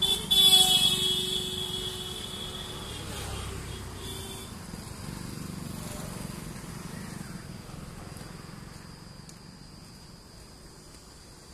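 Passing road traffic with a loud vehicle horn honking at the start, fading over the first couple of seconds. From about four seconds in, insects keep up a steady high trill over the fading traffic hum.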